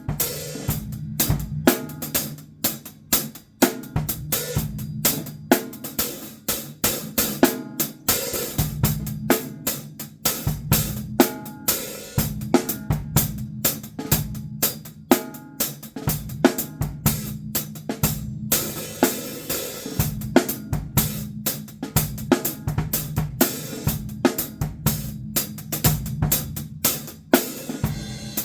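Drum kit played in a solo: fast, uneven strikes on snare and bass drum, with cymbals and hi-hat ringing throughout.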